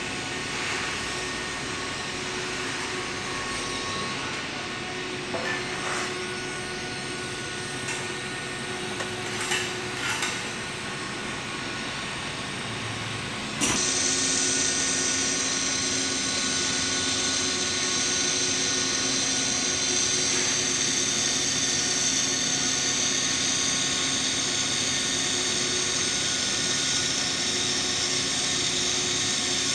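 A steady hum with a few light clicks, then about halfway through a TIG welding arc strikes and burns with a steady hiss as the root pass of a steel pipe joint is welded with filler rod.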